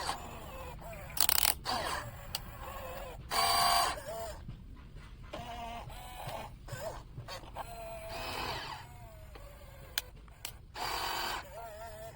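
Small electric motors of a radio-controlled toy excavator whirring in short bursts of about half a second, four or five times, the pitch bending as the load changes.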